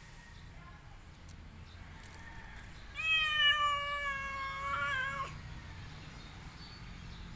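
A cat giving one long, drawn-out meow of about two seconds, starting about three seconds in, holding a fairly level pitch and wavering just before it breaks off.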